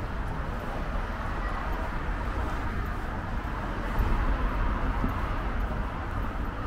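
Town street ambience: steady rumble of road traffic with a continuous low hiss.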